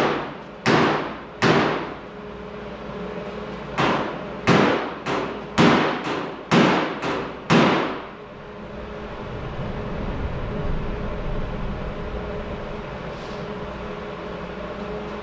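A hand metalworking tool striking the sheet-steel lower quarter panel of a 1973 Plymouth Duster with sharp ringing blows: three strikes, a short pause, then about eight quicker ones, stopping about halfway through. A steady low rumble follows.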